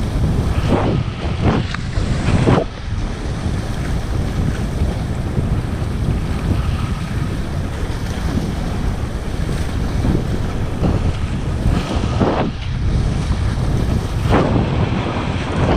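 Wind buffeting the microphone over the rush and spray of water along the hull of a Supercat 17 catamaran sailing upwind at about 20 km/h, with several louder surges of spray.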